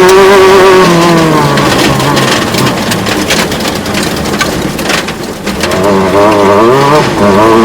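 Off-road race vehicle engine running loud, its pitch dropping as it pulls away. A stretch of sharp clicks and crackles follows. Near the end another engine revs up and down.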